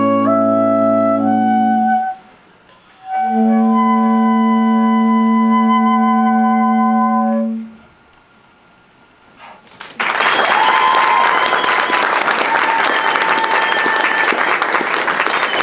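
Saxophone quartet, soprano down to baritone, playing the closing chords of a piece: a short phrase, a brief break, then a long held final chord released about seven and a half seconds in. A couple of seconds later the audience breaks into applause.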